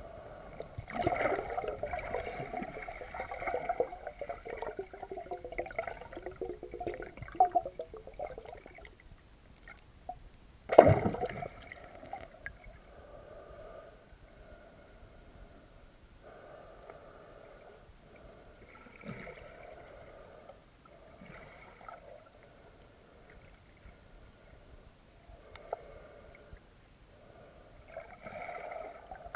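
Muffled underwater rushing and gurgling of river water heard through an action camera's waterproof housing, busier in the first several seconds, with one sharp knock about eleven seconds in.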